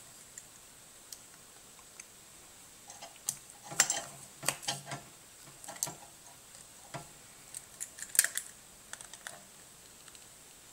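Irregular small metallic clicks and taps of a flat-blade screwdriver working the screws of a three-prong power plug, with the plug's metal parts knocking in the hand, starting about three seconds in.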